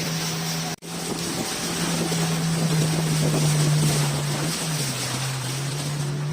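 Outboard motor of a river boat running steadily, with wind and rushing water. The sound cuts out for an instant just under a second in, and the engine's pitch steps down slightly about two-thirds of the way through.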